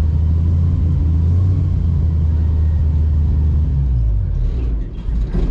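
Airboat engine and propeller running with a steady low drone, then throttled back about four seconds in, the pitch dropping and the sound easing off as the boat slows.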